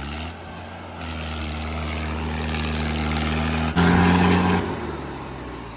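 Tractor diesel engine revving up and held at full throttle, with a louder surge about four seconds in before it eases slightly.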